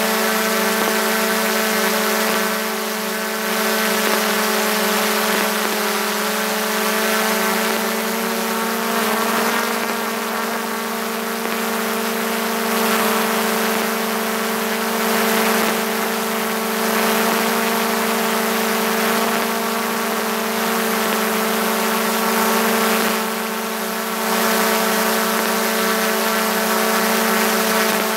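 DJI Mavic 2 Pro quadcopter's four propellers and motors humming steadily at close range, with a hiss of rushing air; the pitch rises slightly about nine seconds in.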